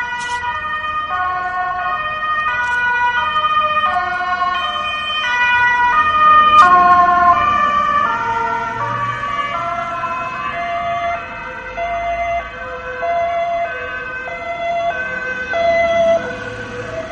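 Dutch police car two-tone siren: a high and a low tone alternate, each held a little over half a second. It grows louder up to about six or seven seconds in. Then the pitch drops and it fades as the vehicle passes.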